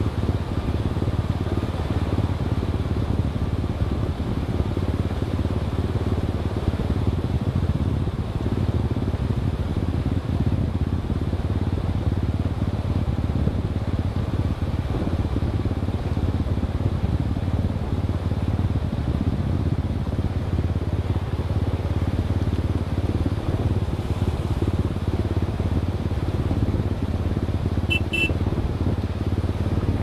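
Steady low rumble of a motor vehicle driving, with two short high chirps near the end.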